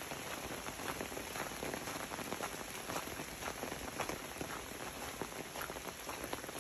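Steady rain falling, with many individual drops ticking sharply and irregularly close by.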